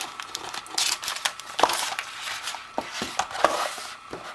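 Paper cards and packaging being handled: irregular rustling with scattered sharp clicks and taps.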